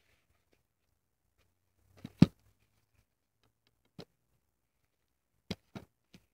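Plastic DVD case being handled and turned over by hand: a few sharp clacks, the loudest a quick double clack about two seconds in, another about four seconds in, and two more near the end.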